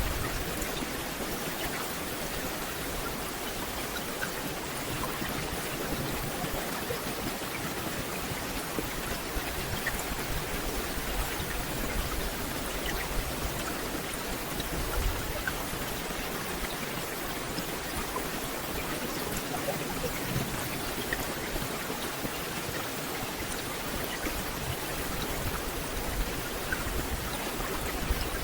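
Steady rain falling on forest leaves: a dense, even hiss with scattered individual drops standing out.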